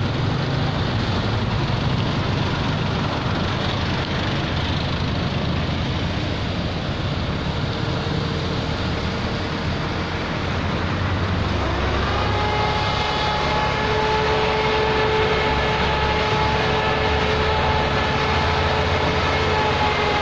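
Mist-cannon disinfection sprayer running over steady street noise; about twelve seconds in, its fan comes up to speed with a steady whine of several tones and a stronger low rumble, blowing the disinfectant spray.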